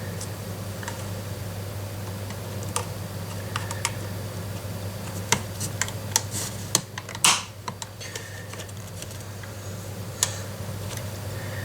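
Scattered light clicks and taps of small plastic and metal airsoft gun parts being handled and fitted, with a cluster of sharper clicks about five to seven and a half seconds in, over a steady low hum.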